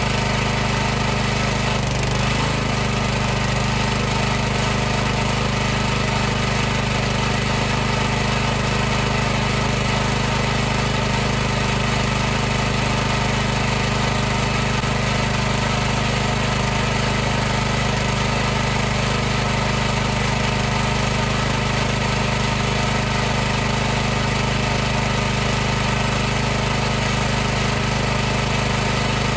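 High-pressure washer running steadily: an even motor-and-pump hum with a steady hiss over it.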